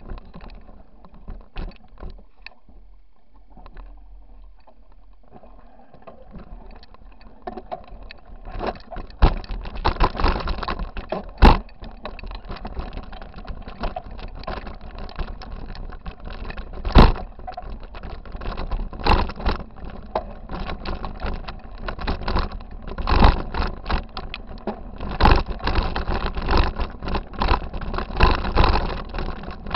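Mountain bike clattering over a rocky trail, picked up through a handlebar-mounted camera: a dense run of rattles and knocks from the bike and mount. It is lighter for the first several seconds, then gets busier, with hard jolts about a third of the way in and near the middle.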